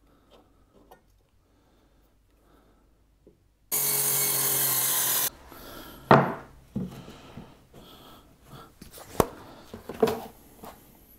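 Trend sliding mitre saw running through a test cut in softwood for about a second and a half, starting and stopping abruptly. The cut pieces of timber are then slid and rubbed against each other and on the bench, with a few sharp wooden knocks.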